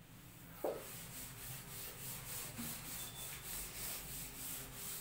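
Chalkboard duster wiping chalk off a blackboard in quick back-and-forth strokes, about three a second, starting with a sharp knock as it meets the board a little over half a second in.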